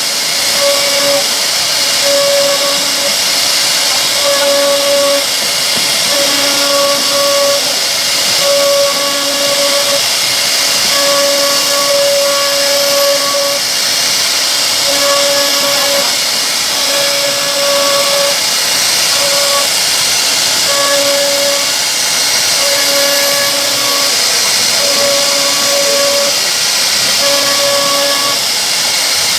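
CNC router carving a solid wood door: a steady, loud high hiss from the spindle and cutting, with a pitched hum that cuts in and out every second or so.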